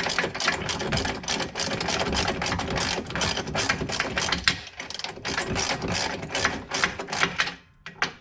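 Hand ratchet clicking rapidly and evenly as a brake caliper mounting bolt is run in, then stopping suddenly near the end.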